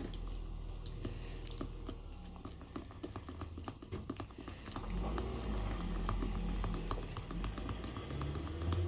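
Thick school glue mixture being stirred, a dense, irregular stream of small sticky clicks and squelches over a low rumble.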